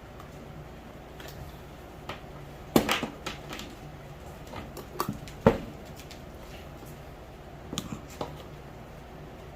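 Parts of a grow-light kit being handled and set down: several sharp knocks and short clatters, the loudest about three seconds and five and a half seconds in, with a few lighter taps near the end.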